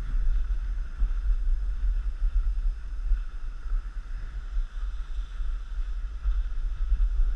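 Wind rumbling and buffeting on the microphone of a camera moving downhill, with a steady hiss over it.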